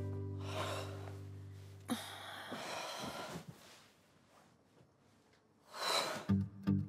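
A bowed-string music cue fades out over the first two seconds. Soft breaths follow, then a near-silent stretch, and a sharp, gasp-like breath about six seconds in, just before strummed guitar music starts.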